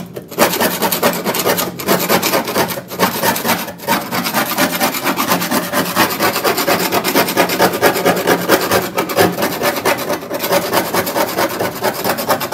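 Continuous fast scraping and rubbing against the car's sheet-metal body, abrasive work on a rusty area.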